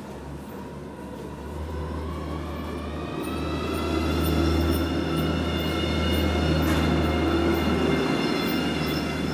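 A vehicle or machine running: a whine over a low rumble, swelling and rising slightly in pitch over the first few seconds, then holding steady.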